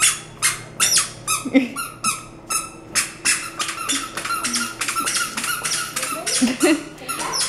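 Toddler's squeaker shoes chirping with each step as she walks: a quick run of short, high squeaks, about two or three a second.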